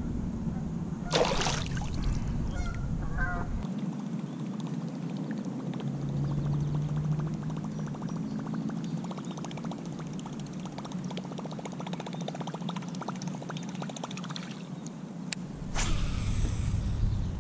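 Water splashing as a released bass goes back into the lake, then fast, fine ticking as a Berkley Choppo topwater lure is cast and reeled in on a baitcasting reel, with another splash of water near the end.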